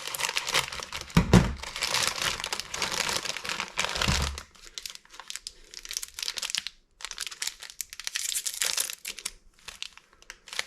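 Crinkly plastic snack bag of senbei rice crackers being opened and handled, crackling steadily for the first four seconds or so, then in shorter, scattered crinkles. A dull knock a little over a second in is the loudest moment.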